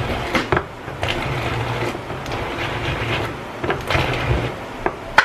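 Tescom electric stick blender running in a small bowl, its motor whirring steadily with scattered knocks as it chops tempe and soft food into coarse baby food. It cuts off right at the end.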